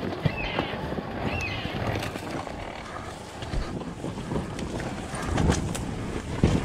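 Two-stroke enduro dirt bike running at low revs along a trail, with wind buffeting the microphone. Short high chirps repeat about once a second in the first two seconds, and a few sharp knocks come near the end.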